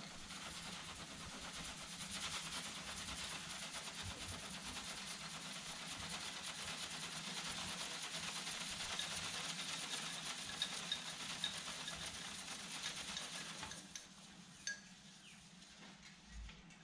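Homemade Hero's engine (aeolipile) made from a drink can: steam hissing steadily out of its jets as the can spins over a gas burner, with a fine crackle and a few light clinks. The hiss drops away about fourteen seconds in.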